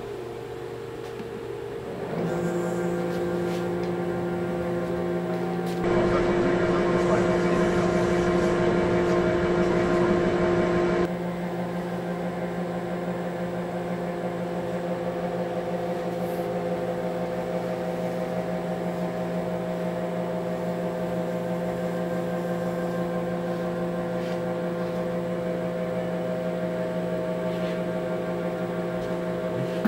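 Lathe spindle running, a steady mechanical hum and whine that starts about two seconds in. It grows louder and rougher for about five seconds, then settles back to a steady run.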